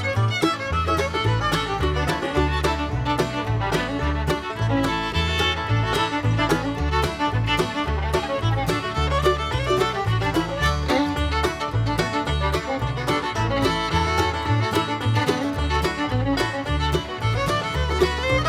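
Background instrumental bluegrass-style music with fiddle and a steady bass line.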